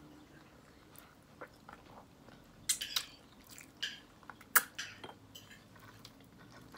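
Close-up wet chewing and lip-smacking of a person eating chicken with her hands and sucking her fingers: scattered short smacks and clicks, with louder clusters about three seconds and four and a half seconds in.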